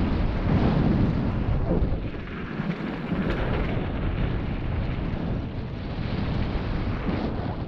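Wind rushing over the microphone of a mountain bike camera, over a low rumble of the bike rattling across rough, rain-chunked dirt trail at speed. The rumble is loudest over the first two seconds and eases slightly about two seconds in.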